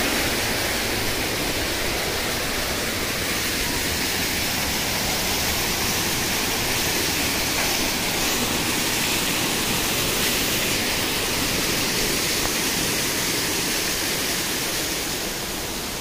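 Steady rushing of a small waterfall and stream, an even hiss that eases slightly near the end.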